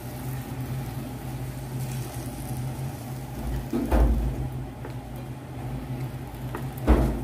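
Water simmering around dates in a hot nonstick frying pan, a quiet steady hiss over a low hum, while a wooden spatula stirs and presses them. Two dull knocks of the spatula against the pan, about halfway through and near the end.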